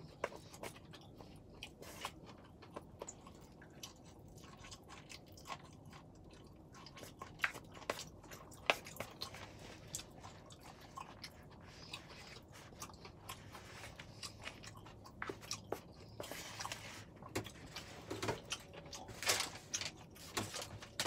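A person chewing and eating pad thai noodles close to the microphone: soft, irregular clicking mouth sounds, a little busier near the end.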